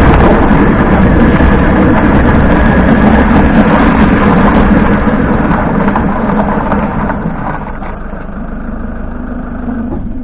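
Toyota HiAce 200-series van on the move: tyre road noise and drivetrain running noise, easing off from about halfway as the van slows, then dropping away sharply at the end. The owner hears a rattle from the differential under the road noise, with the hub bearings already replaced.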